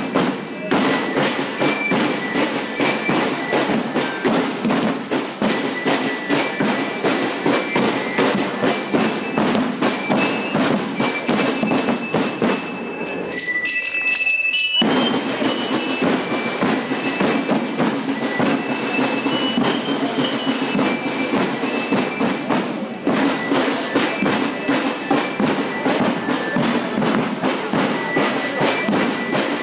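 Marching band music: fast, even drum strokes with bell-like metallophone notes ringing over them. About 13 s in the drums stop for a second and a half while the bell notes carry on alone, then the drumming resumes.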